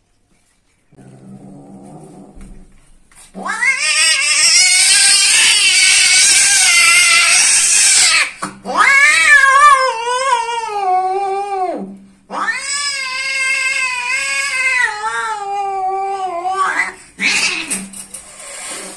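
Domestic cats mating: caterwauling. A short low cry comes first, then three long drawn-out yowls that each rise and then sink in pitch, and a short last cry near the end.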